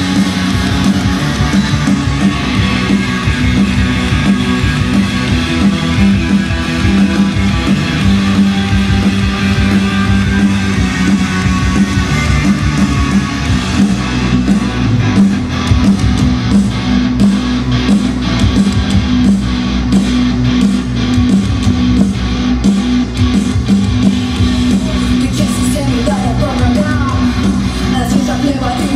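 Rock band playing live, loud electric guitar to the fore, with sharp hits coming in about halfway. A woman's singing voice enters near the end.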